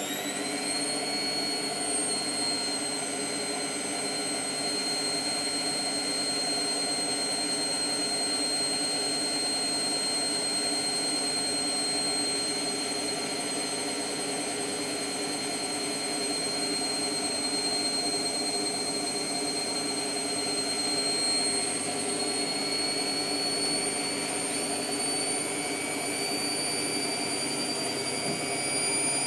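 Hotpoint WMF720P washing machine spinning up to its 1200 rpm final spin burst. The motor and drum whine climbs quickly in pitch at the start, then holds as a steady high whine at full speed, edging a little higher near the end.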